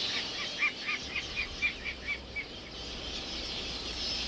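Dense twittering of a large quelea flock. Over it, a rapid run of about ten short, sharp call notes sounds in the first two and a half seconds.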